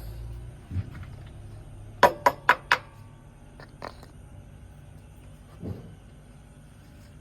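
Four quick, sharp knocks in a row about two seconds in, with a few fainter single knocks around them, over a low steady hum.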